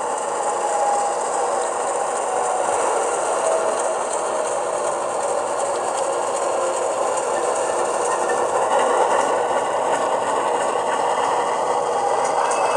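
HO-scale Dash 9-44CW model locomotive's sound decoder playing a GE 16-cylinder diesel prime mover through its small onboard speaker, running steadily with tones that drift slowly in pitch as the model moves along the track.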